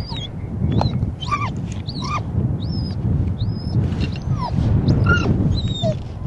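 Strong wind buffeting the microphone, with many short, high-pitched squeaks and chirps that sweep up and down in pitch scattered over it.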